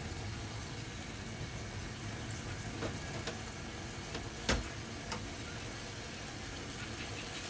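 Pan of ajillo oil heating on a lit stove: a steady low hiss and rumble with a few light knocks, the clearest about halfway through.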